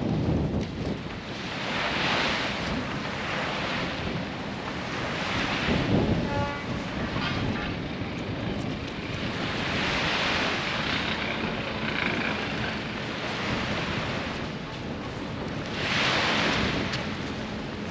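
Small waves washing up onto a sandy beach, the rush of surf swelling and fading every few seconds, with wind buffeting the microphone.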